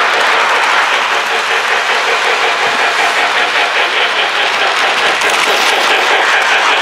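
Lionel model train running on its track: a steady rolling noise of metal wheels on the rails, with faint ticking as the cars pass.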